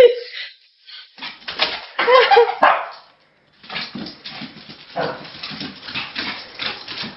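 A dog barking in short bursts, with a brief pause about three seconds in.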